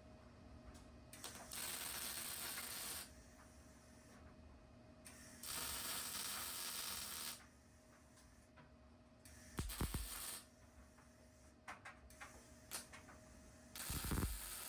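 Arc welding on a steel chassis in four short bursts of a second or two each, the arc hissing and crackling, with a low thump at the start of the last two. The welds are laid in short runs so the metal can cool and heat doesn't build up in one spot.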